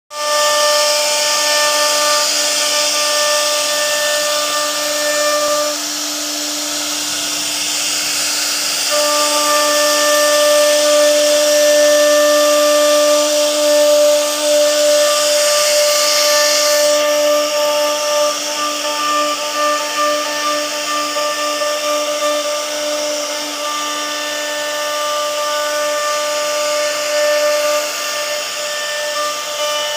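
CNC router spindle whining steadily as its bit cuts a relief carving into a wooden door panel, over the hiss of the cutter in the wood. The whine thins out for a few seconds about six seconds in, and a high hiss stops suddenly around seventeen seconds in.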